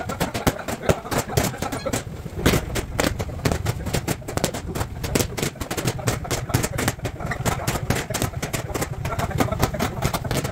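Boxing gloves striking focus mitts in quick, uneven strings of sharp slaps, over a steady low rumble.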